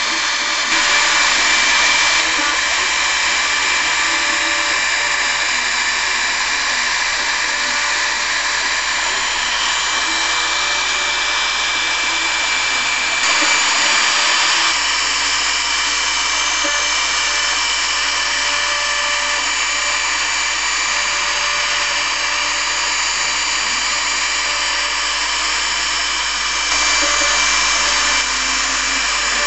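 CNC router spindle running at speed, its bit milling a relief carving into wood: a steady high whine over the hiss of cutting, the level stepping up briefly three times.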